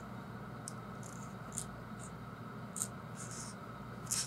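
Faint, brief scratchy rustles of fingers handling a small plush toy on a wooden tabletop, about half a dozen light brushes, over a steady low room hum.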